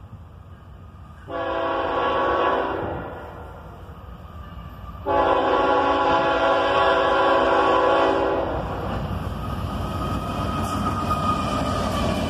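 Norfolk Southern diesel locomotive's air horn sounding twice as the intermodal train approaches, several tones at once: a short blast about a second in, then a longer blast of about three seconds starting about five seconds in, the loudest sound here. After the horn stops, the rumble of the passing locomotives and train fills the rest.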